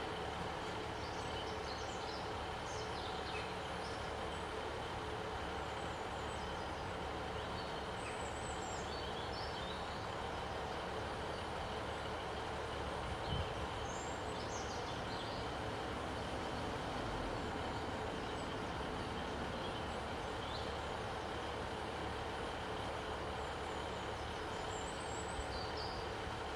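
GWR Class 150 diesel multiple unit idling at the platform, its underfloor diesel engines giving a steady hum, with a brief light knock about halfway. Birds chirp faintly now and then.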